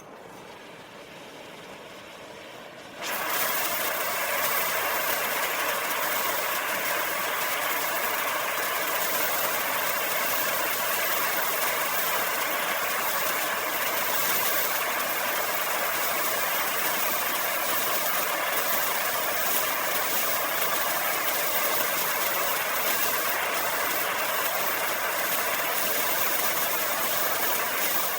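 Acetylene torch flame hissing softly, then jumping to a much louder steady hiss about three seconds in.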